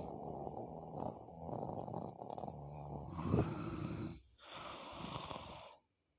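A person snoring, with long drawn-out snores. There is a brief lull about four seconds in, and the sound stops abruptly near the end.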